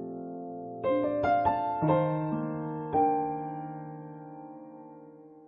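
Calm background piano music: a held chord fades, then a short run of struck notes about a second in and another chord near three seconds, which rings and slowly fades away.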